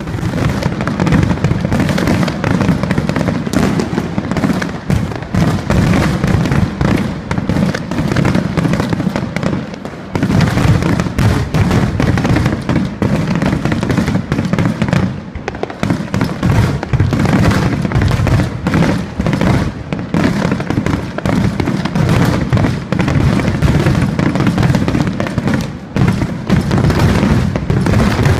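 Aerial fireworks shells bursting in a dense, unbroken barrage: booms overlapping one another continuously, with crackle on top and only brief lulls.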